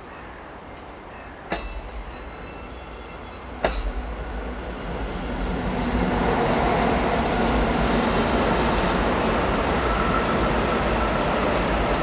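Electric-locomotive-hauled container freight train approaching and running past: a steady rumble and clatter of wheels on rail that swells over the first half and then holds loud. Two sharp metallic clanks come early, about two seconds apart.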